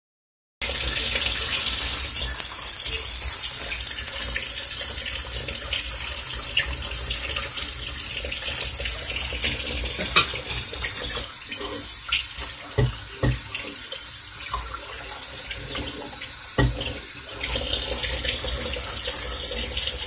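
Tap water running steadily into a stainless steel kitchen sink, splashing and hissing. The water noise drops for a few seconds past the middle, with a few knocks.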